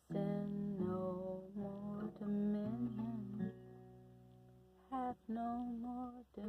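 Acoustic guitar played with a woman's voice carrying the hymn melody without words, in phrases broken by short pauses.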